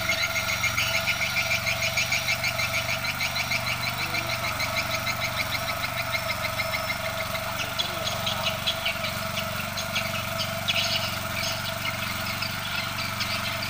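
Firman FTL 620 mini tiller's engine running steadily under load as its rotary tines work through the soil of a raised bed. A fast, even ticking rides over it through roughly the first half.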